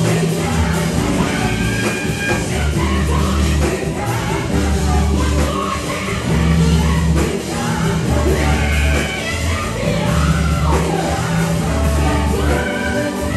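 Live gospel song: a lead singer and backing vocalists singing into microphones over a band with drums.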